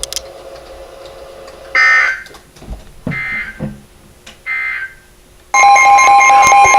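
Three short buzzing SAME digital data bursts of the Emergency Alert System, then about five and a half seconds in the loud, steady two-tone EAS attention signal starts on the weather radio.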